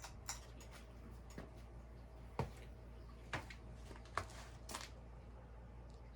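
Hunter Original ceiling fan with a 2-amp motor running on low speed: a faint, steady motor hum, with a handful of sharp ticks at uneven intervals.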